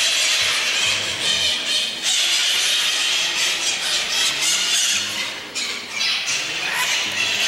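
Oilbird colony in the cave giving a dense, continuous chorus of harsh screeches.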